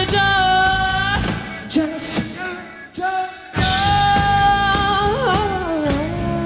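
Live rock band with a woman singing lead, holding long notes over the band. About halfway through the sound briefly drops away, then the voice and band come back with a long sung note that slides down in pitch near the end.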